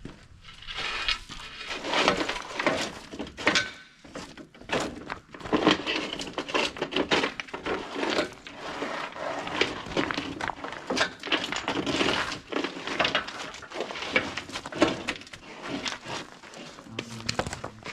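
Stones and rubble being shifted and dropped by hand: many irregular knocks, clatters and scrapes with no steady rhythm.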